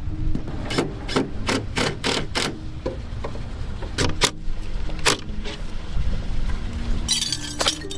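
Cordless impact driver working a fitting on a plywood concrete form: a run of sharp knocks about three a second, a few more a little later, and a short rattling burst near the end. A steady low hum sits underneath.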